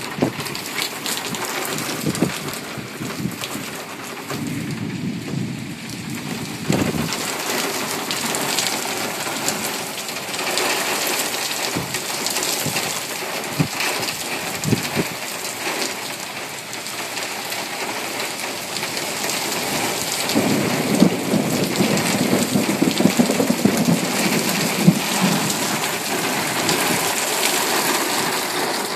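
Heavy rain falling steadily on wet pavement and lawns, with thunder rumbling low underneath. The thunder swells a few times, with the longest and loudest roll in the last third.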